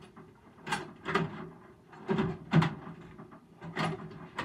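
Drawers of a Craftsman metal tool chest sliding open and shut with clatter from the contents, in about five short bursts, over a faint steady low hum.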